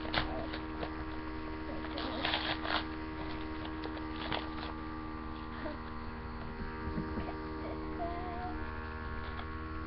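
Steady electrical hum picked up by a laptop's built-in microphone, with a few short rustles and taps of the mailing package being handled, the busiest about two seconds in.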